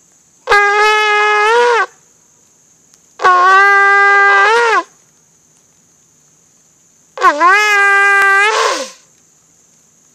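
Ram's-horn shofar blown in three long blasts, each a held note that bends up in pitch just before it cuts off. The third blast opens with an upward swoop into the note.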